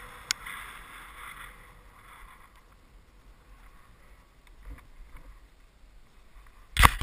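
Skis hissing as they glide over snow, fading away after about two and a half seconds as the skier slows, with a single sharp click early on. A sudden loud burst of rumbling noise starts right at the end.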